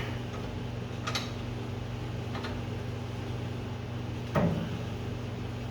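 A few light metallic clicks and one louder knock as coil spring compressor parts are handled and fitted up into a car's front suspension, over a steady low hum.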